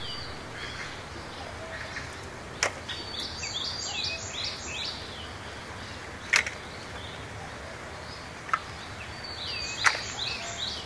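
Four sharp knocks of hard plastic toys being dropped into a plastic basket. A bird sings in the background: two runs of four or five quick falling chirps, about three seconds in and near the end.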